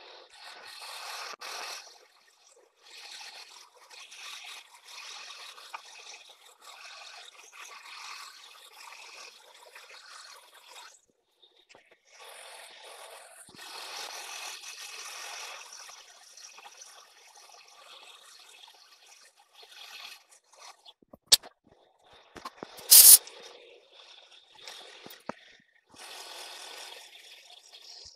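A 3/8-inch two-flute end mill cuts a keyway into a metal tractor flywheel hub on a milling machine. The cutting noise runs in stretches with short pauses, and two sharp clicks come about three-quarters of the way through, the second louder.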